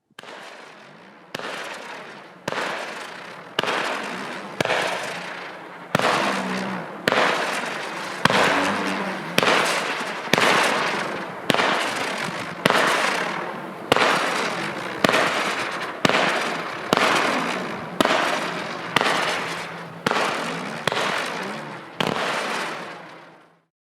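A 25-shot "Chaos" firework battery firing shot after shot, about one a second, each launch followed by a fading hiss. It stops after the last shot.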